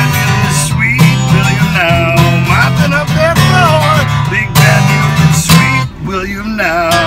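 Acoustic guitar strummed steadily with a man singing along, his voice wavering. The playing gets quieter about six seconds in as the song winds down.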